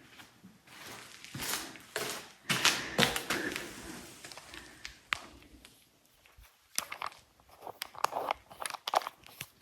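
Irregular rustling and scraping with several short, sharp clicks scattered through it.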